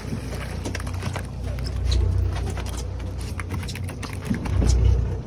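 Wind rumbling on the microphone aboard a fishing boat at sea, swelling about two seconds in and again near the end, with scattered sharp clicks and taps over it.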